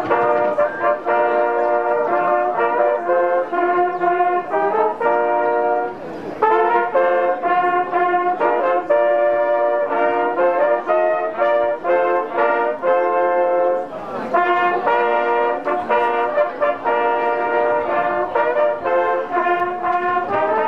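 A small ensemble of brass hunting horns playing a tune in chords, in several phrases with short breaks about six and fourteen seconds in.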